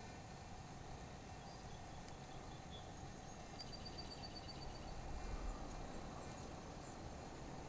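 Quiet outdoor background sound, with a quick run of about ten high chirps about three and a half seconds in and a brief low rumble a little after.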